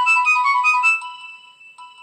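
Nokia 2600 mobile phone playing one of its preloaded ringtones through its loudspeaker: a quick electronic melody of bright, clean notes, then a held note that fades away.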